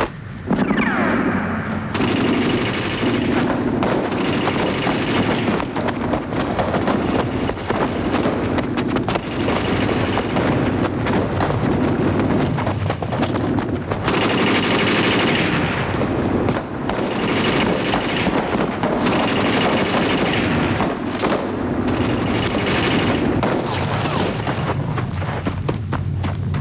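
Battle sound effects: sustained machine-gun and rifle fire, a dense rapid crackle with heavier bursts that come and go.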